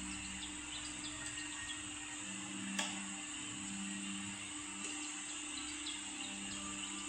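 Steady background hiss with faint, scattered short high chirps from small birds, and one sharp click a little under three seconds in.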